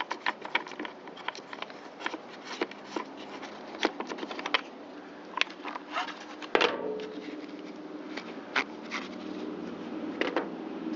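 Hand-tool and parts-handling noises: scattered sharp clicks, taps and scrapes of metal and plastic parts as the blower's air filter and carburetor are taken off.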